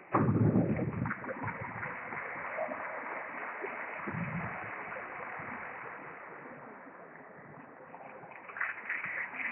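Steady hiss of sports-hall room noise with faint taps of a table tennis ball and paddles during a rally, opened by a short loud low sound lasting about a second.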